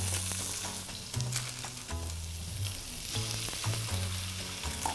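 Raw chicken breasts sizzling steadily in hot vegetable oil in a non-stick frying pan, over background music with a repeating bass line.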